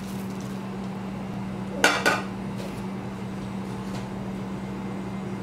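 Two quick metallic clinks close together about two seconds in, kitchenware knocking against a steel cooking pot, over a steady low hum.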